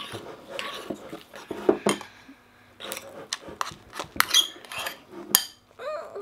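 Spoons clinking and scraping against bowls as sticky slime is stirred, in irregular sharp knocks.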